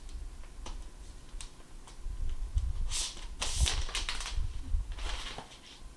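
A new MacBook Pro's thin protective sleeve rustling and crinkling as the laptop is slid out of it, with scattered light handling clicks. The loudest crinkling comes in bursts a little past the middle.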